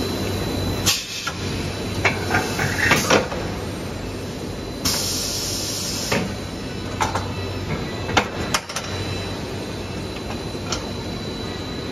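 Biodegradable film blowing machine's winder running: a steady mechanical hum with a faint high tone, broken by scattered clicks and knocks. A burst of hiss comes about five seconds in and lasts about a second.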